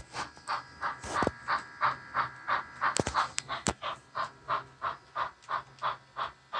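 Simulated steam-locomotive chuffs from an HO-scale Rivarossi 4-4-0 model's sound system, a steady beat of about three chuffs a second. A few sharp clicks come through, about a second in and twice near the middle.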